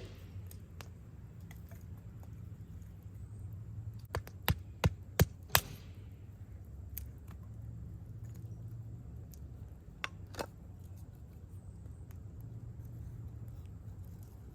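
Five sharp cracks in quick, fairly even succession about four seconds in, and two more around ten seconds, over a low steady rumble.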